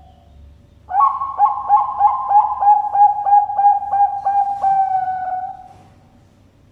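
Bangkok-bred zebra dove (perkutut) singing: a quick rhythmic run of about a dozen cooing notes, about three a second, ending in one longer drawn-out coo.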